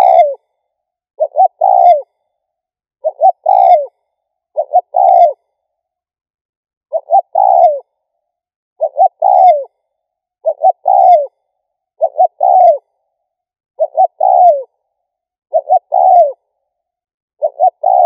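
Spotted dove cooing: its song phrase repeated about every two seconds, each a couple of short notes and then a longer note falling at the end, with silence between.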